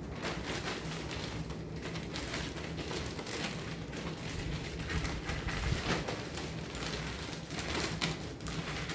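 Irregular rustling and light clicking as items are handled and moved about, over a faint steady hum.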